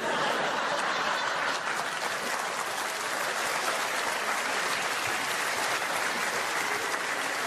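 Large theatre audience applauding, breaking out at once and holding steady.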